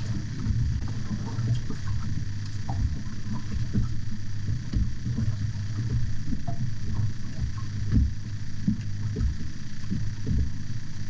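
A fishing boat's engine running steadily with a low hum, with irregular low thumps over it.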